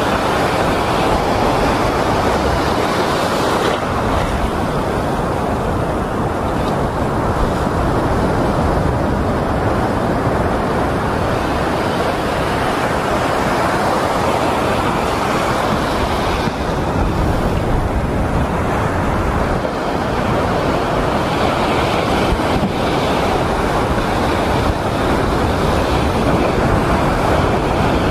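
Surf breaking and washing over a shallow rocky reef, a loud steady rush, with wind buffeting the microphone.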